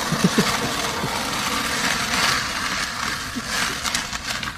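Skateboard wheels rolling over concrete: a steady, rough rolling noise.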